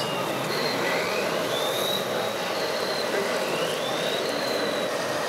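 High whine of a radio-controlled model's electric drive. It falls in pitch, climbs back about two seconds in and climbs again near the end, over a steady noisy background.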